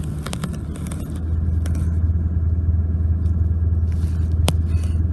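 Vehicle engine and tyre drone heard from inside the cabin while driving a sandy dirt track; the low drone grows louder about a second in. A few light clicks and rattles sound over it, one sharper near the end.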